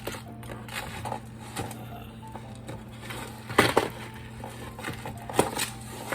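Costume jewelry being handled: scattered clicks and clinks of beads and metal pieces knocking together, with a sharper clack about three and a half seconds in and another a little past five seconds. A steady low hum runs underneath.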